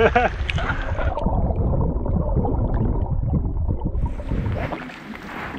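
Wind rumbling on the microphone out on open water, easing off about four and a half seconds in.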